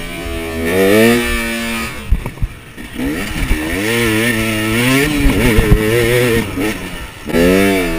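KTM 300 EXC's two-stroke single-cylinder engine revving up and falling back again and again while the dirt bike is ridden hard. About two seconds in, the revs drop briefly and there are a few sharp knocks.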